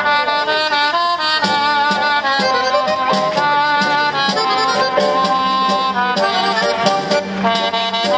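Recorded instrumental music with a melody of held notes over a regularly pulsing bass, played through a small portable amplifier-speaker.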